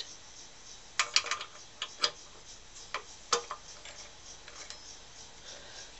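Spark plug socket and wrench clicking against the spark plug as it is loosened from a small engine's cylinder head: irregular sharp metal clicks, mostly in the first half, a few faint ones later.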